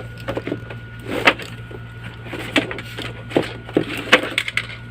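A present's packaging being torn and handled open by hand: irregular crinkles, taps and knocks of paper and cardboard, with sharper knocks about a second in and again near the end.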